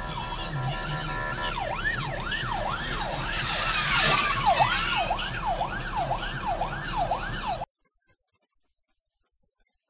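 Police car siren in a fast yelp, pitch sweeping up and down about twice a second over traffic noise, with a loud burst of noise about four seconds in. The sound cuts off abruptly about three quarters of the way through.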